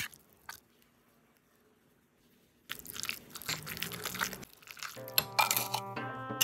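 A spoon stirring and mashing canned tuna in a ceramic bowl: close, wet, clicky squishing that starts about three seconds in, after a sharp knock at the start and a short quiet gap. Background music with steady held notes comes in over it for the last second or so.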